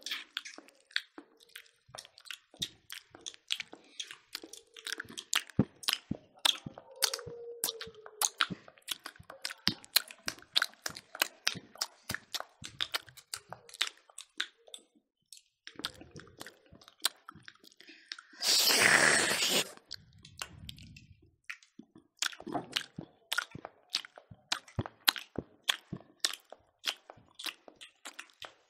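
Close-up chewing and lip smacking as several people eat smoked pork and rice with their hands, a steady run of small wet clicks and crunches. About two-thirds of the way in, a loud rushing noise lasting about a second and a half stands out above the chewing.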